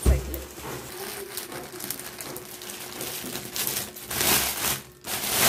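Clear plastic wrap crinkling and cardboard box flaps rustling as hands pull the packing off, with a dull thump right at the start and louder crinkles about four seconds in.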